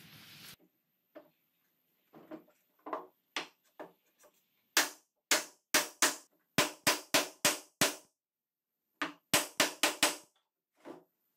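A mallet knocking a wooden board down onto a pine table trestle's leg assembly to seat the joint: a few light taps, then a quick run of about ten hard knocks, a short pause, and about five more.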